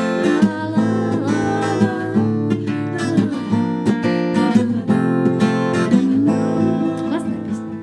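Acoustic guitar strummed in a steady rhythm of full chords, growing gradually softer near the end.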